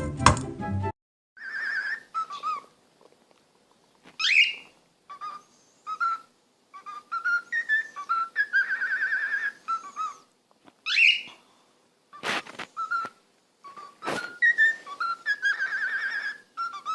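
A parrot whistling a string of short warbling notes, with two sharp rising squeaks about four and eleven seconds in. A brief burst of music ends about a second in.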